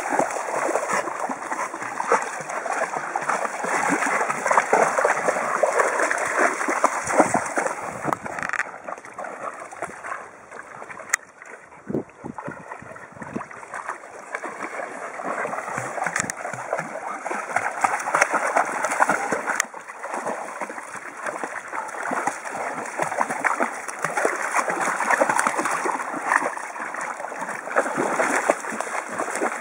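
Shallow sea water splashing and sloshing as dogs wade and swim, with a quieter stretch for a few seconds in the middle.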